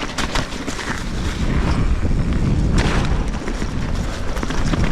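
Strong wind buffeting an action camera's microphone as a continuous low rumble, with scattered clicks and rattles from a mountain bike riding over rough trail.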